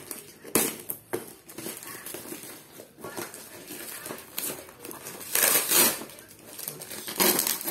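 Cardboard box and its plastic liner rustling and crinkling as they are pulled open by hand, with a sharp click about half a second in and louder rustling about two-thirds of the way through and near the end.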